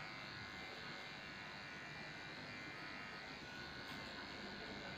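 Corded electric dog-grooming clipper running with a steady buzz as it clips a shih tzu's coat around the base of the tail.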